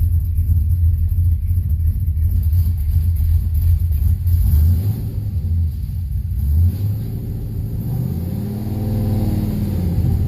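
Ford Mustang 4.6-litre V8 running just after a fresh start on a newly loaded tune, with a loud low rumble. About two-thirds of the way in the rumble eases, then near the end the engine speed briefly rises and falls back.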